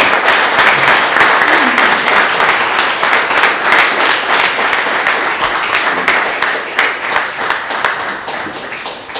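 Audience applauding: dense clapping from a room of people, fading away near the end.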